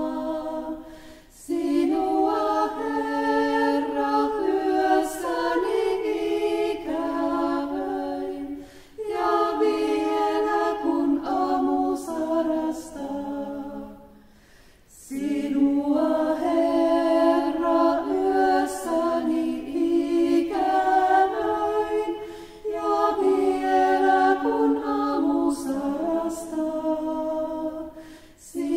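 A small group of women singing a slow chant unaccompanied, in sustained sung phrases with brief breaks for breath between them. This is the kind of Taizé chant used in a Finnish Taizé prayer service.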